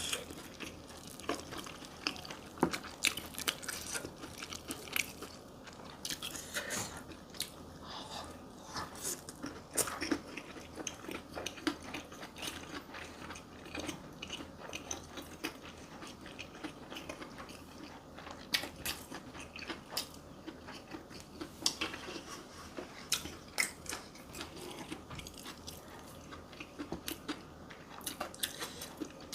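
A person eating: chewing and biting food, with frequent small crunches and wet mouth clicks.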